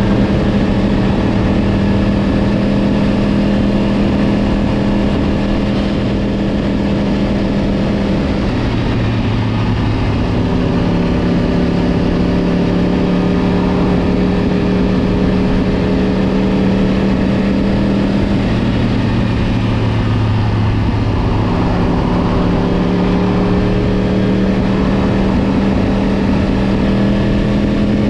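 Yamaha R1 sport bike's inline-four engine running steadily while riding along the road, its note shifting in pitch twice, about a third and two thirds of the way through.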